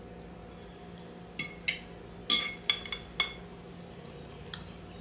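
Metal serving spoon and fork clinking against a glass bowl and a plate while potatoes are scooped out: about half a dozen ringing clinks bunched in the middle, the loudest a little past two seconds in.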